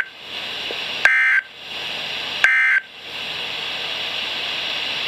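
EAS end-of-message data bursts from a weather radio: two short, shrill digital tone bursts about a second and a half apart, right after the tail of an earlier one. Each is followed by the radio's steady static hiss, which carries on after the last burst.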